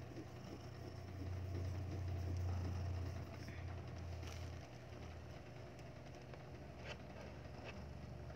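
A cat purring, a low steady rumble that swells for a few seconds about a second in, then settles. The queen is in labour, partway through delivering a kitten.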